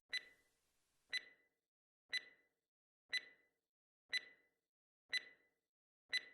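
Countdown timer sound effect ticking once a second, short high pitched ticks evenly spaced, marking the answer time after a quiz question.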